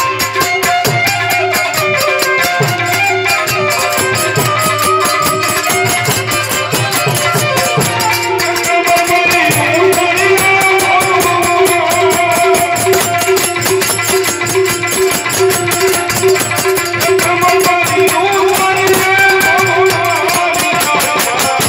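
Live Gujarati bhajan: a man sings into a microphone to his own harmonium, with a tabla and small rattling percussion keeping a fast, even beat.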